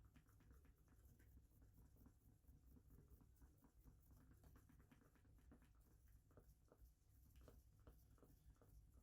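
Near silence: faint, irregular scratching and clicking over a low hum.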